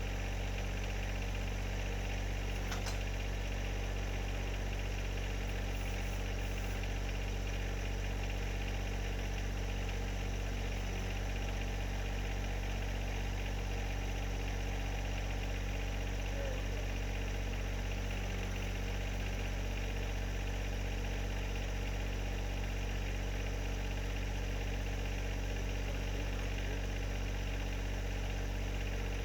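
John Deere 1025R tractor's three-cylinder diesel engine idling steadily.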